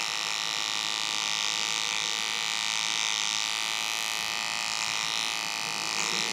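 Cordless electric beard trimmer buzzing steadily as it cuts along the side of a beard.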